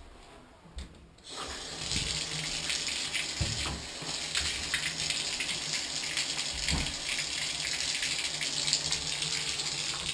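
Bathtub faucet turned on, water running from the spout and splashing into the tub steadily from about a second in. A few dull thumps sound through the running water.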